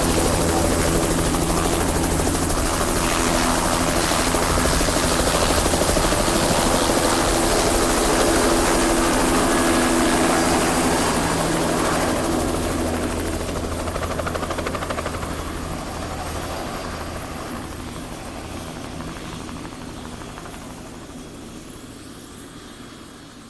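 Helicopter rotor and engine running with a steady, rhythmic flutter, then fading away over the last ten seconds or so.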